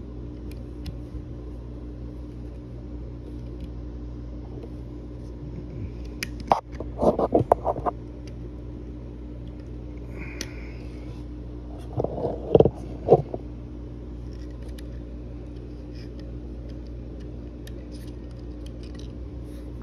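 Small metal tools and parts clicking and scraping against a Taurus TH9 pistol frame as the trigger spring is worked into place, in two bursts of sharp clicks about six and twelve seconds in, over a steady low hum.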